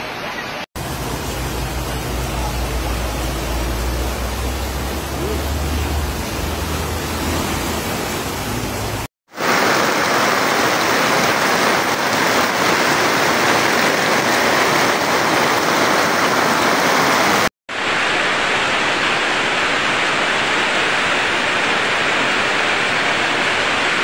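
Rushing floodwater, a loud steady rush of water broken by two sudden cuts into three separate stretches. The first stretch also carries a low rumble under the rush.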